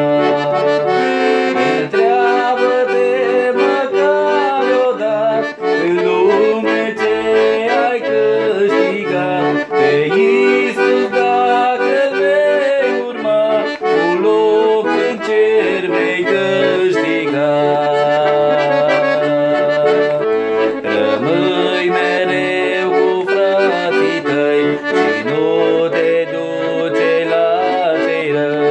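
Piano accordion playing the instrumental interlude between verses of a Romanian Christian song: a moving melody over sustained low notes.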